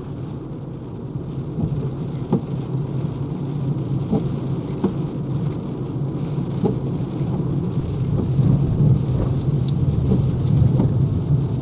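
Heavy rain on the roof and windscreen of a Renault Zoe electric car on a wet road, heard inside the cabin. A steady low rush with scattered sharper drop taps, a little louder from about eight seconds in.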